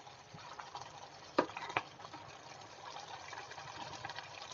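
A spoon stirring thick moong dal khichdi in a steel pot: a soft, wet churning with many small pops and ticks, and two sharp clicks of the spoon on the pot about a second and a half in.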